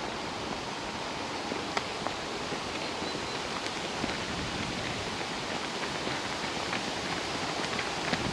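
Steady rushing of wind through trees and over the microphone, with a few faint scattered clicks.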